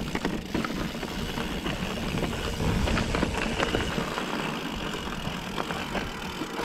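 2022 Trek Top Fuel 9.8 full-suspension mountain bike descending a rocky trail: a steady rumble of tyres over rock and dirt, broken by frequent rattles and knocks from the bike.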